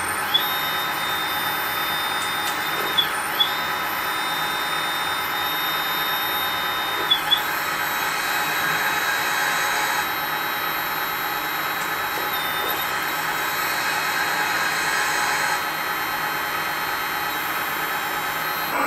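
Hydraulic system of a LESU HMK 490 RC excavator whining steadily as the scrap grapple's hydraulics are worked. Its high tone dips briefly, with sharp clicks, at about 3 and 7 seconds in.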